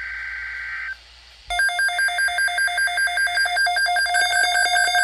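Weather radio alert: the end of a SAME digital header burst, a harsh buzzing data tone, for about the first second, then after a short pause a loud electronic alert alarm of rapidly pulsing beeps begins and keeps going.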